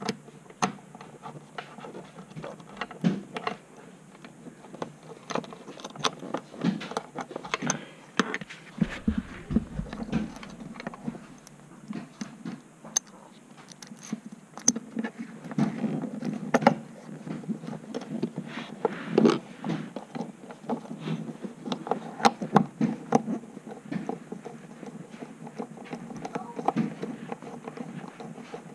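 Irregular small metallic clicks and taps with fabric rustling: bolts, washers and sleeves handled and fitted by hand under the car's carpet. A low thump about nine seconds in.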